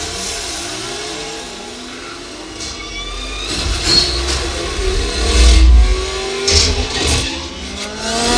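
Movie soundtrack of a car-race scene played on a home theater speaker system: several car engines revving in rising and falling pitches, with a heavy bass rumble about five seconds in and sharp crashes after it.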